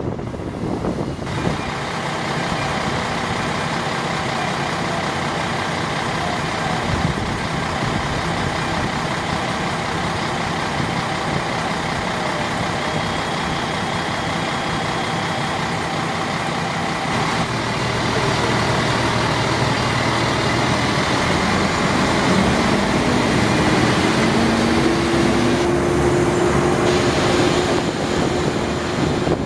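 Diesel railcar running under way, heard from an open window: a steady engine hum over wheel-on-rail rumble and wind noise. About 17 seconds in, the engine grows louder and its note climbs slowly, as it works harder.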